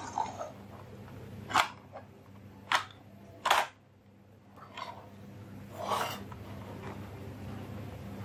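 Plastic toy dump truck being handled, its tipper bed raised and lowered: a few sharp plastic clicks and knocks, three close together in the first half and a couple of softer ones later, over a faint steady hum.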